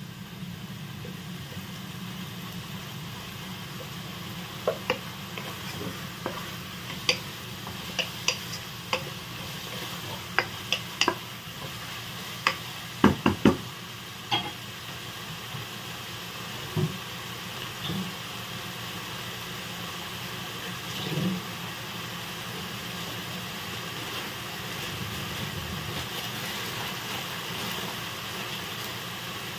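Shredded chicken, onion and garlic sizzling in oil in a nonstick pot, with a wooden spatula knocking and scraping against the pan through the first half. After that only the steady sizzle, growing a little louder near the end.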